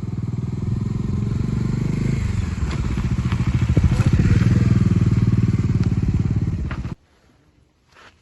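Motorcycle engine running with a steady, rapid pulsing beat, a little louder from about two seconds in, then cutting off abruptly about seven seconds in.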